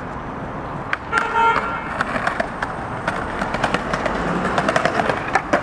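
Skateboard wheels rolling on stone paving, a sharp knock about a second in, then the metal trucks grinding along a concrete ledge with a rough, clattering scrape, ending in a sharp smack near the end.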